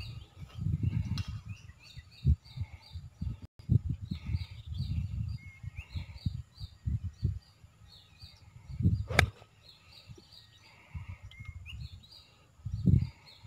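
A golf iron striking the ball once, a sharp crack about nine seconds in. Wind gusts buffet the microphone on and off, and birds chirp throughout.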